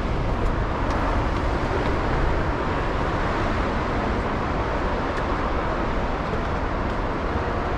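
Steady rushing noise of coastal wind and surf, heaviest in the low rumble.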